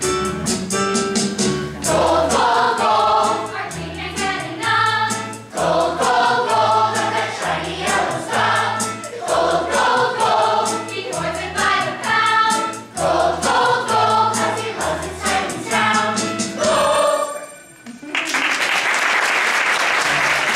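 A stage cast singing a song together over an instrumental accompaniment with a steady bass beat. The song ends near the end, and audience applause breaks out.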